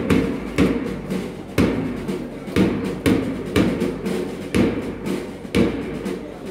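A marching bass drum beats a steady cadence of about one stroke a second for troops marching on parade, with band music sustained underneath.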